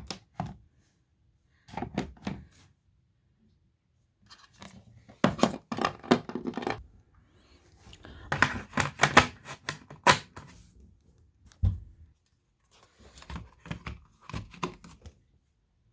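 Plastic smoke alarms being handled and put back in place: bunches of clicks, knocks and scrapes of plastic, with short silent gaps between them and one heavier thump near the two-thirds mark.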